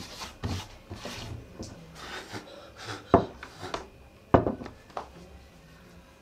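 Rubbing and scraping of things being handled on a wooden table, with scattered light knocks, two of them sharp and loud about three and four and a half seconds in.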